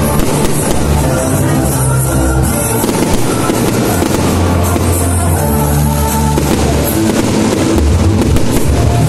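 Loud music with a steady bass line, overlaid by the crackling and popping of aerial fireworks bursting.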